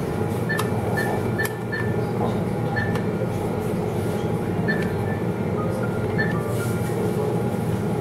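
Cash machine (ATM) keypad beeping as keys are pressed: four quick beeps in the first two seconds as the PIN is entered, then single beeps as menu buttons are pressed. A steady background din runs underneath.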